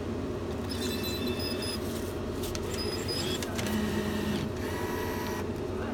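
Banknote acceptor of a roulette gaming terminal drawing in a £20 note, its motor whirring in two spells, about a second in and again around three and a half seconds in, over the terminal's steady low hum.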